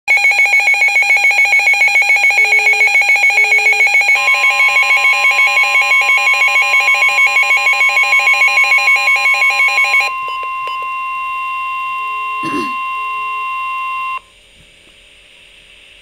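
A S.A.M.E. weather alert radio sounds a flood-warning alert. Its own loud, fast-pulsing alarm beeps about five times a second for about ten seconds, then stops. About four seconds in, the steady 1050 Hz NOAA Weather Radio warning tone comes in over the radio. It carries on alone after the beeping stops and cuts off near the end, leaving faint hiss.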